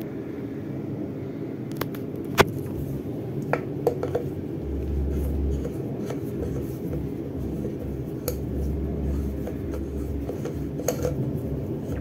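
Metal tool clicking and scraping against a Whirlpool washing machine's plastic water pump as it is pushed into and worked in the pump's square drive hole, with one loud click about two and a half seconds in. A low rumble comes and goes in the second half.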